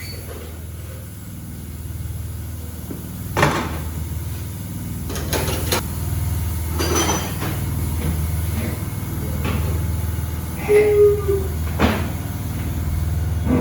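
Low steady machine hum with several sharp knocks and clanks of metal tools or equipment, and a brief tone about eleven seconds in.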